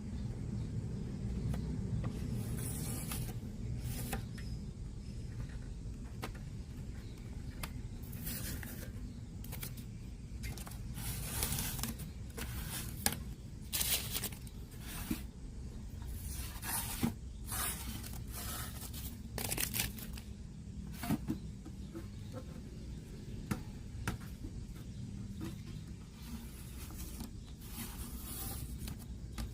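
Irregular scraping and rustling handling noises, strokes of a second or less at uneven intervals, over a steady low hum.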